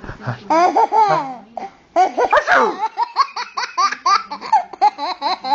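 Baby laughing, with high squeals at first and then, from about halfway, a rapid run of short laughs about five a second.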